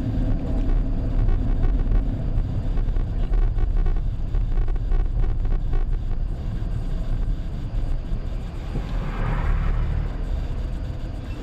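Chevrolet Tahoe driving, a steady low rumble with repeated short knocks from the suspension, the knocking fault the owner is demonstrating.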